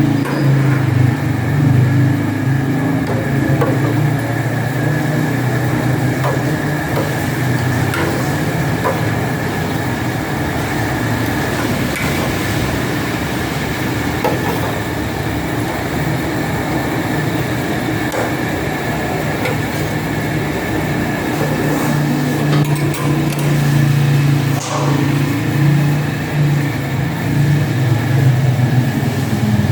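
A motor or engine running steadily with a low hum and a thin high whine, with scattered light clicks and knocks over it.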